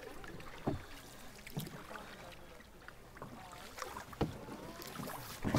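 Canoes being paddled on a calm river: soft paddle strokes and water sounds, with a few sharp knocks of paddles against a canoe hull. Faint voices can be heard in the distance.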